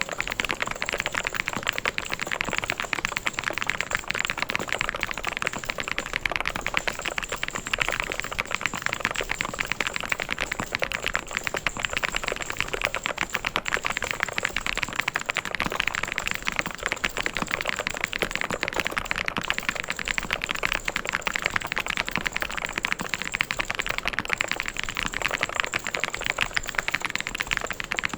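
Mechanical keyboard being typed on fast and without pause: a dense, even run of key clicks and clacks.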